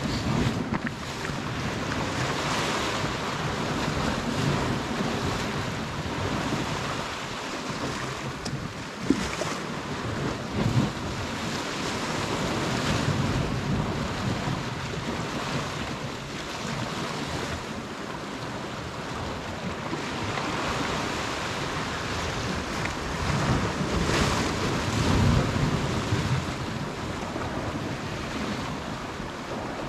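Sea waves washing with wind buffeting the microphone: a steady rush that swells a little now and then, with one short click about nine seconds in.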